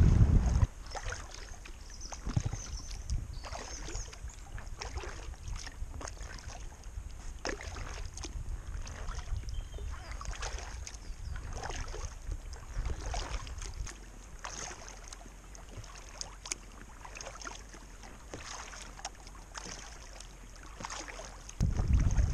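Kayak paddle dipping and dripping beside an inflatable kayak: small scattered splashes and trickles of water. Wind buffets the microphone with a low rumble in the first moment and again from near the end.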